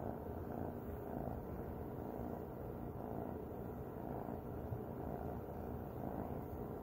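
A domestic cat purring steadily, close up.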